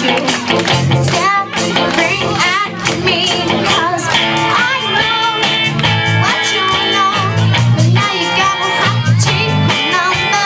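Live rock band playing a song: electric guitars and drum kit keeping a steady beat, with singing over the first few seconds. From about four seconds in, held guitar chords ring out over the drums.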